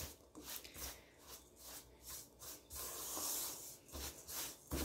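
Spatula stirring and scraping crumbly wheat-flour cookie dough in a metal bowl, in repeated rough strokes about three a second, with one longer scrape a little past the middle.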